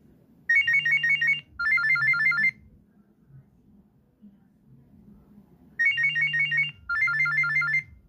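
Nokia 6016i mobile phone ringing for an incoming call with a monophonic ringtone: two quick phrases of rapid high electronic beeps, a pause of about three seconds, then the same pair of phrases again.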